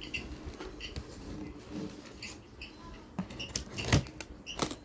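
Printer packaging being handled and opened: cardboard and plastic rustling with scattered clicks and a few sharper knocks, loudest in the second half.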